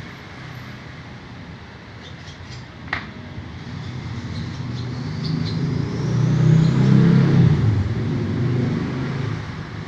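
A motor vehicle passing by: its low engine rumble swells to a peak about two thirds of the way through and then fades, with a faint high whine rising in pitch near the middle. A single sharp click about three seconds in.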